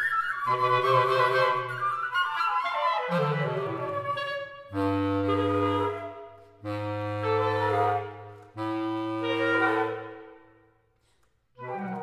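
Woodwind quartet of two flutes, clarinet and bass clarinet playing: dense chords, a descending passage about three seconds in, then three held chords over a low bass clarinet note, each fading away, and one short chord near the end.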